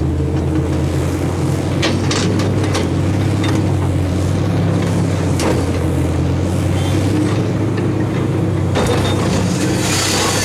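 Excavator loading a dump truck with river gravel: a steady diesel engine hum with a few sharp clanks, and a louder rushing noise from about nine seconds in.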